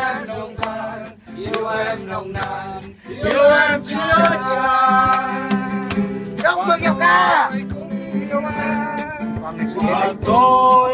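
A man singing a song to a strummed acoustic guitar, his voice rising and holding notes over the steady strumming.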